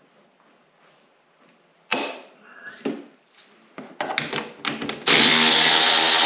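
A few tool clicks and knocks, then about five seconds in a cordless drill/driver starts and runs steadily, backing out a windshield-mount screw whose nut spins in its housing and is held with locking pliers.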